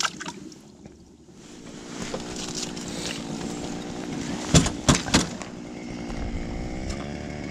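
A small engine running steadily with a slightly wavering pitch, building up about a second and a half in, with a few sharp knocks about halfway through.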